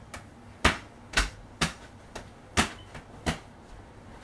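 Sharp hand claps and slaps between two people, about seven in an uneven rhythm of roughly two a second.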